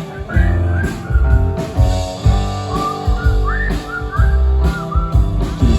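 Upbeat novelty rock song playing, a whistled melody of short rising phrases carried over a band with bass and a steady drum beat.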